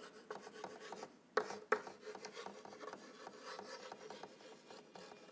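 Chalk scratching on a blackboard as a word is handwritten: a run of short strokes, with two sharper taps about a second and a half in.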